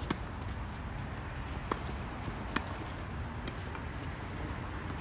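Tennis rally: four sharp knocks of racquets striking the ball and the ball bouncing on the court, the loudest two in the middle, over a steady low background rumble.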